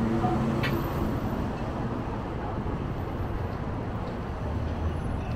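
Steady low rumble and hubbub of a busy city or station space, with faint indistinct voices at the start and a short click just under a second in.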